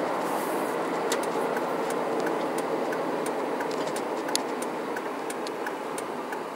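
Steady cab noise of a 2006 Dodge Ram 2500 cruising on the highway, its 5.9 L Cummins inline-six turbo diesel and tyre and road noise heard from the driver's seat, easing slightly toward the end. Over it a turn signal clicks evenly, about one and a half clicks a second.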